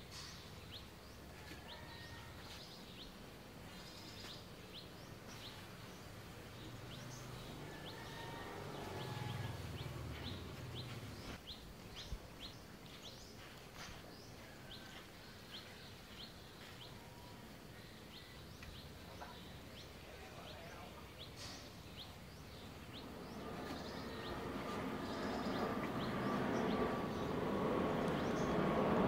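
Small birds chirping repeatedly over a faint background, with a low rumble about 8 to 11 seconds in. From about two-thirds of the way through, a low-flying jet airliner's engine noise rises steadily, growing loudest at the end.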